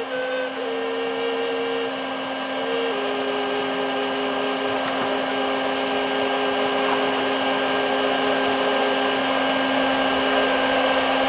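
Shop vac used for bee removal, running steadily, with a whistling tone over it that drops in pitch in a few small steps.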